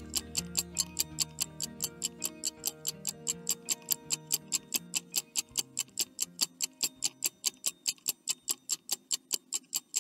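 Rapid clock ticking, about four ticks a second: a countdown-timer sound effect. Soft background music plays under it and fades away over the second half.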